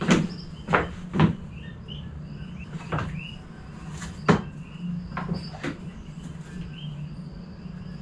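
A handful of sharp wooden knocks and thumps, about seven scattered over the first six seconds, as a mosquito net is handled over a wooden four-poster bed in a wooden hut. Faint short chirps and a low steady hum run underneath.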